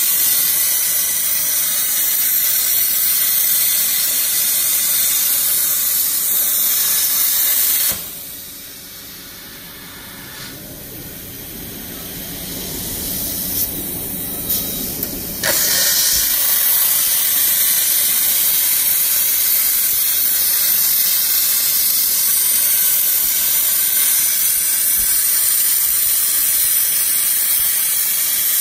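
CNC plasma cutter's 100-amp plasma arc cutting 20 mm steel plate, a loud, steady high hiss. About eight seconds in the arc cuts off, leaving a quieter lull with a low rising hum and a few clicks. About seven seconds later the arc strikes again abruptly and the hiss resumes.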